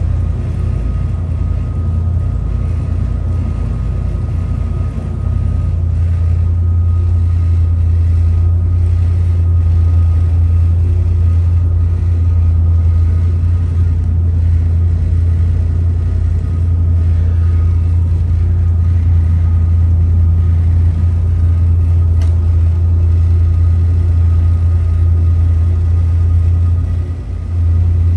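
Motor yacht's engines running steadily underway: a constant low drone with a faint steady whine above it.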